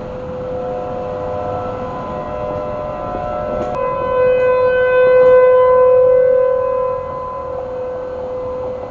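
Several mechanical outdoor tornado warning sirens (ASC T-128s and Federal Signal Thunderbolts) sounding a steady alert tone together, their pitches overlapping. The sound grows louder about four seconds in and falls back about three seconds later.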